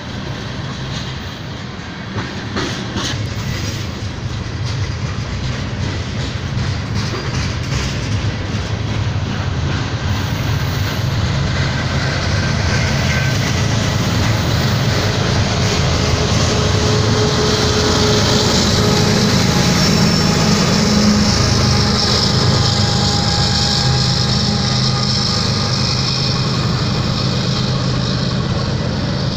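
Freight train cars rolling past close by, wheels rumbling and clattering over the rail joints, getting louder as the train goes by. From about halfway, thin steady squeals from the wheels on the rail sit above the rumble.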